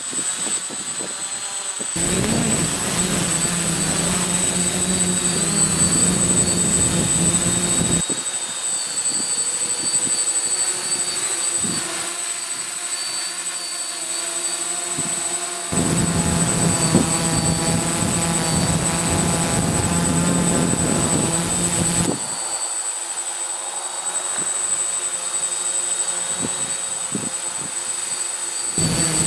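DJI F450 quadcopter's motors and propellers whirring in flight, their pitch wavering up and down as it struggles to hold position in strong wind. Wind gusts buffet the microphone in long, loud stretches.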